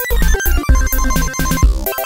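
Background music: an upbeat electronic tune with a steady, fast beat and a synth melody.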